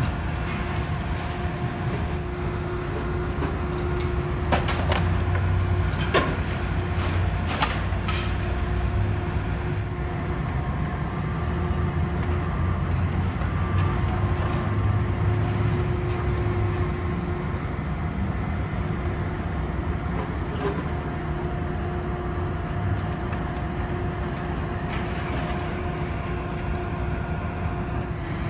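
Heavy demolition machinery running at a building teardown: a steady low diesel rumble with a held hum, and several sharp clanks between about four and eight seconds in.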